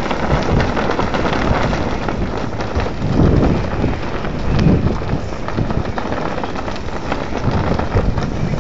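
Wind blowing across a small phone microphone: a steady, rough rushing with stronger gusts about three and about five seconds in.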